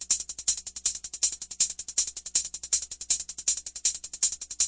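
Synthetic cymbal rhythm: fast, steady, bright hi-hat-like ticking with a stronger accent about three times a second.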